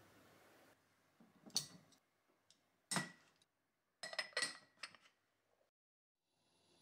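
Glass clinking as a glass lid is handled and set onto a glass storage jar: a knock about one and a half seconds in, one sharp ringing clink about three seconds in, then a quick run of lighter clinks.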